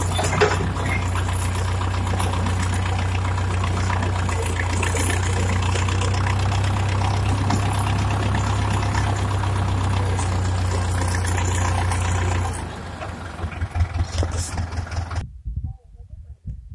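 Steyr 8073 tractor's diesel engine running steadily. About twelve seconds in, the engine sound ends and gives way to irregular thumps and rustling for a couple of seconds, then the sound drops low near the end.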